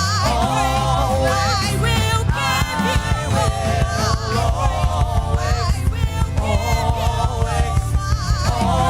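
Gospel worship music: singers with a band, wavering sung melody over a heavy bass line, and a steady pulsing beat coming in about three seconds in.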